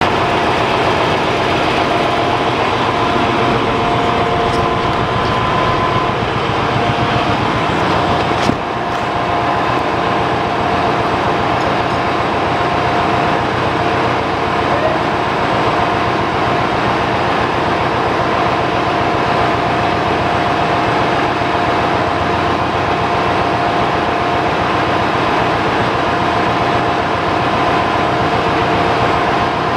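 Loud, steady din of running engine-room machinery, with a few steady humming tones over it. A single sharp knock sounds about eight and a half seconds in.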